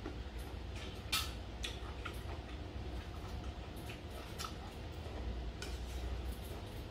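Eating sounds: chewing with irregular sharp clicks, and a metal spoon working in a stainless steel bowl, over a steady low hum.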